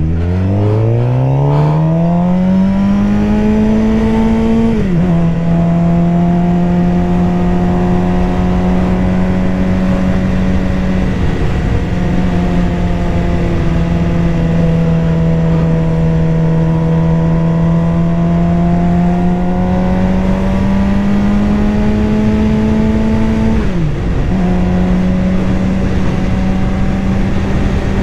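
Suzuki GSX-R750's inline-four engine pulling up through the revs, then dropping sharply on an upshift about five seconds in. It holds fairly steady revs for a long stretch, climbs again and shifts up once more near the end.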